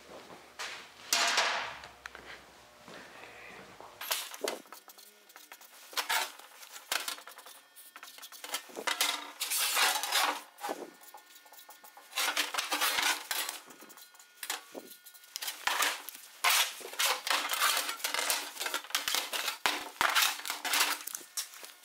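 Thin sheet-steel panels being handled, slid and set down on a workbench: irregular metallic rattling, scraping and clanking.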